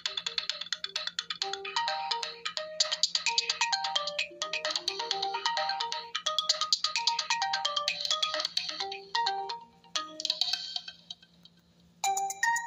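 Oppo A7 phone ringtones: a quick electronic melody of short notes that fades out about eleven seconds in, then, after a second's pause, a different, brighter ringtone starts near the end.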